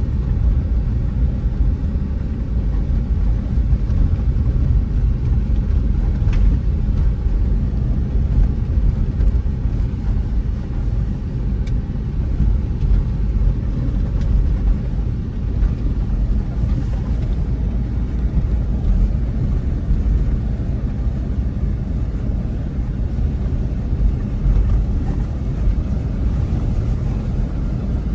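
Steady low rumble of a car driving, heard from inside the cabin: engine and tyre noise with no sharp events.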